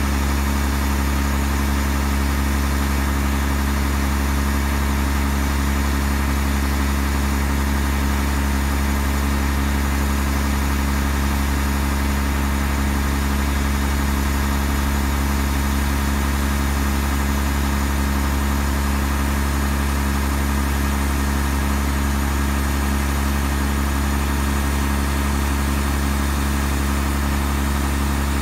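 Scania hooklift truck's diesel engine idling steadily while its hydraulic hook arm is slowly worked.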